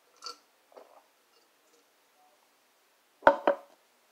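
A quick sip of soda from a glass just after the start, then the drinking glass set down on a table with two sharp knocks a little over three seconds in.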